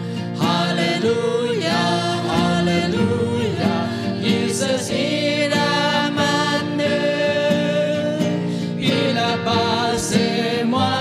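A small mixed group of men and women singing a gospel hymn together in Bidayuh, accompanied by acoustic guitar.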